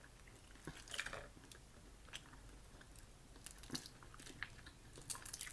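Boiled crawfish shell cracking and crackling as it is peeled apart by hand, with faint chewing. There are brief crackles about a second in, more around the middle, and a quick run near the end.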